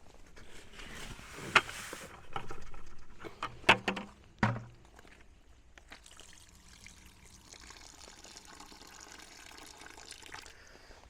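Water poured into a bucket of dry mortar, sand and grout mix for log-cabin chinking, a faint steady trickle in the second half; a few sharp knocks in the first half.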